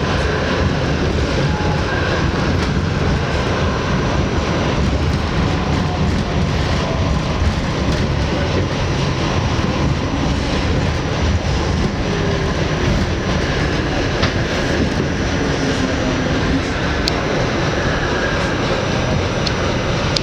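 R68 subway train running at speed, heard from aboard the car: a steady, loud rumble of wheels on rail.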